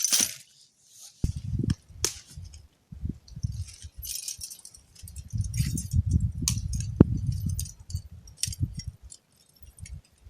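Footsteps of a person walking through leaf litter and brush, with irregular rustling, crunching and a few sharp clicks, and dull bumps of a hand-held camera being carried.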